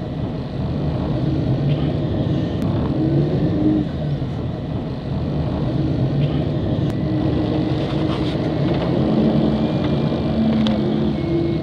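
Tram heard from inside the car while riding along: a steady low running rumble, with a few brief humming tones that come and go.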